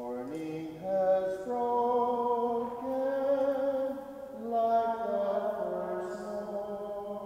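A single voice singing a slow hymn in long held notes, stepping from note to note, the entrance hymn as the priest processes to the altar.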